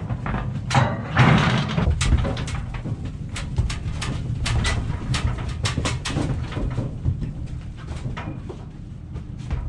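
Cattle hooves knocking on a stock trailer's floor as calves walk out, with the trailer's metal panels and gate clanking: a long run of sharp, irregular knocks and clanks.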